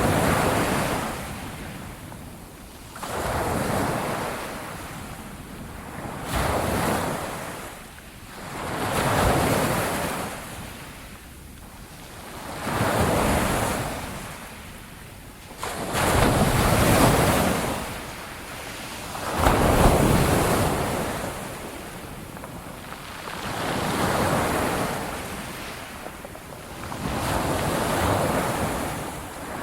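Ocean surf: waves break and wash in one after another, each swelling and fading over three to four seconds. Several waves come in with a sudden crash.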